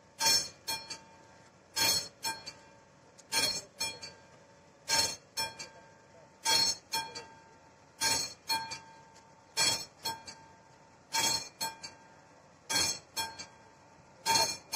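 Classic mechanical level-crossing bell ringing its warning for an approaching train: a loud stroke followed by two or three quicker, fainter strokes, the group repeating about every second and a half, each stroke ringing on briefly.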